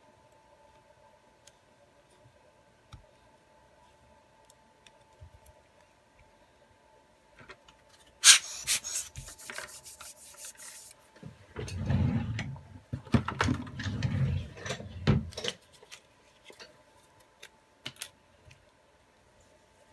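Hand rubbing and pressing on a smartphone's bare metal mid-frame on a rubber repair mat, in a run of rough strokes lasting about four seconds. Just before it comes a sudden hiss of about two and a half seconds.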